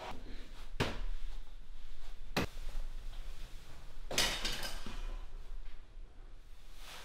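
Two sharp knocks about a second and a half apart, then a longer, rougher clatter about four seconds in, in a small echoing room.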